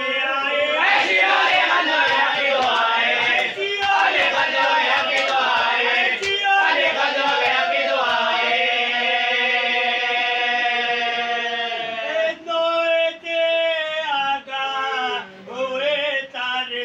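Male voices chanting a noha, a Shia mourning lament, in long drawn-out sung lines; about halfway through, one note is held steady for several seconds before shorter phrases resume.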